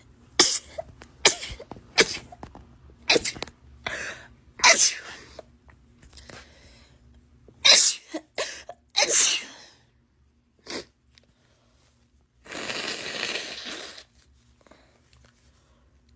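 Women sneezing over and over, about ten sharp sneezes in all, some coming in quick runs of two or three. Near the end comes a longer noisy burst of about a second and a half.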